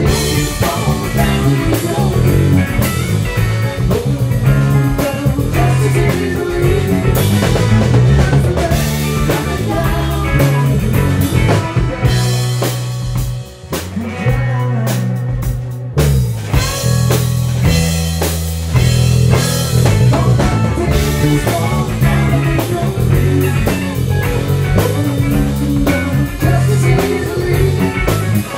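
Live rock band playing an instrumental passage on electric guitars, electric bass and drum kit. The drums drop back briefly about halfway through, leaving guitar and bass, then the full band comes back in.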